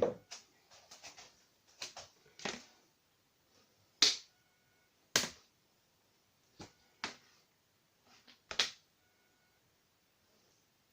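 A series of short, sharp clicks and knocks at uneven intervals, about one a second, with near silence between them.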